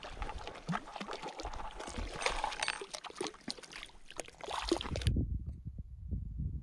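Shallow lake water splashing and trickling against the rocks as a cutthroat trout is released by hand, with many small splashes and clicks. About five seconds in this cuts off suddenly, leaving only a low rumble.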